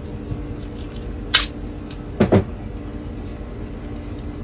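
Blue masking tape being wrapped and torn off around a stainless steel braided hose: one short, sharp rip about a second and a half in, then a brief dull knock a second later, over a steady low hum.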